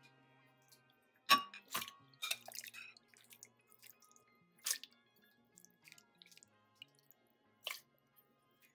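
Metal spoon clinking against a glass bowl and glass blender jar as wet, boiled carrot pieces are scooped and dropped into the jar: a handful of sharp clinks spaced unevenly, with soft wet squelches between them. Faint background music underneath.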